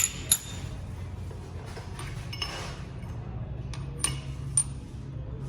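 Metal parts and tools clinking against each other: sharp ringing clinks, two near the start and two more about four seconds in, over a steady low hum.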